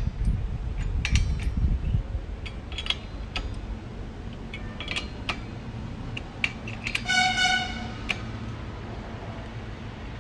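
Scattered metal clicks and clinks of a blade and its nut being fitted to a brush cutter's head, with a low rumble in the first two seconds. About seven seconds in, a single horn-like tone sounds for about a second.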